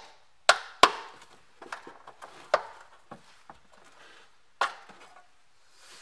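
Scattered sharp knocks and clicks of hand tool work as a rubber plug is worked out of a pickup truck's metal floor pan. Four knocks stand out, and lighter ticks fall between them.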